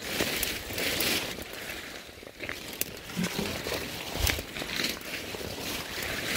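Footsteps through dense wet undergrowth, with leaves and branches swishing and rustling against the walker in irregular bursts and a few small twig snaps.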